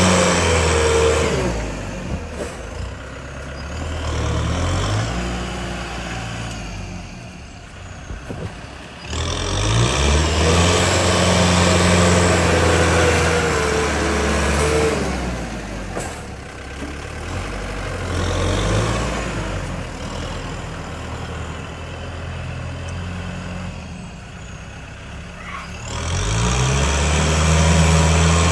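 Heavy diesel engine of earthmoving machinery revving up under load and settling back to a lower drone, twice, with loud spells in between quieter running.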